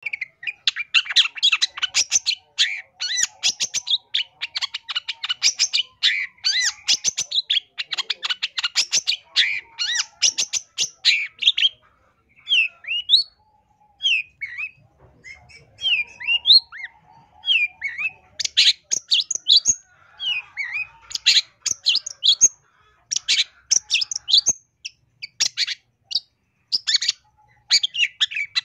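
Long-tailed shrike (cendet) singing a varied song full of imitated calls of other birds. It opens with fast chattering runs of notes, drops to single rising whistled notes for a few seconds near the middle, then goes back to bursts of chattering.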